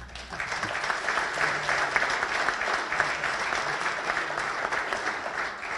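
Audience applauding: a dense, steady patter of many hands clapping that starts right after the speech ends and eases slightly near the end.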